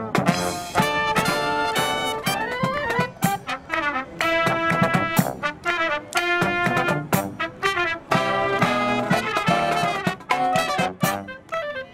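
Marching brass band playing a lively tune, trumpets and trombones over a steady beat of sharp percussion strikes.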